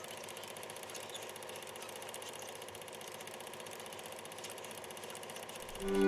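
Film projector running with a steady, fast mechanical clatter. Violin music comes in just before the end.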